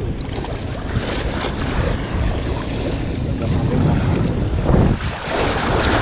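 Sea waves washing and splashing against a breakwater's edge under a rising tide, with wind buffeting the microphone.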